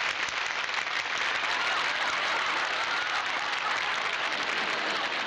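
Studio audience applauding steadily, a dense clapping that holds at an even level throughout.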